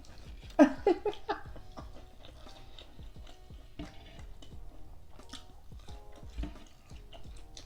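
Close-miked mouth sounds of someone eating fried food: irregular wet chewing and biting, with small crunches and smacks. A brief vocal sound comes about a second in, over faint background music.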